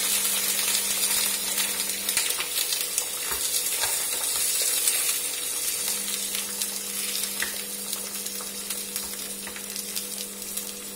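An egg frying in oil in a small pan, sizzling steadily and slowly dying down, with a few light taps.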